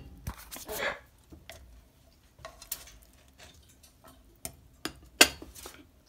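Kitchen clatter of a ceramic plate and a frying pan on a stovetop: scattered light clinks and knocks, with one sharp clank about five seconds in.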